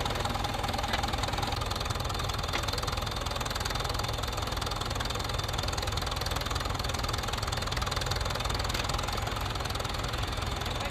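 Tractor diesel engine running steadily with a low clatter.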